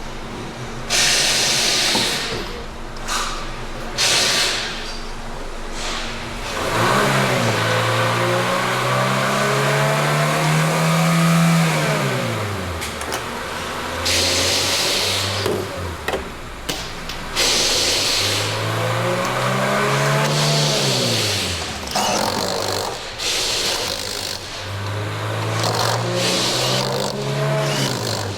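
Hyundai Santa Fe engine revved up and let back down three times, its pitch rising and then falling each time.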